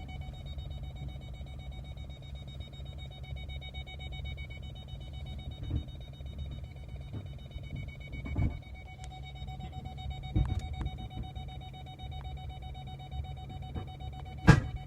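Pickup truck's rear parking sensor beeping rapidly, set off by the lowered tailgate, then switching to a continuous tone about halfway through. Under it the truck's engine runs low and steady. A few knocks sound, and a loud thump comes near the end.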